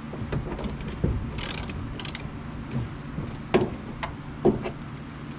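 Hand ratchet clicking in short irregular runs as a door-hinge bolt is worked, with two sharper metallic knocks about three and a half and four and a half seconds in. The ratchet's direction lever keeps flipping, so it is not always turning the bolt.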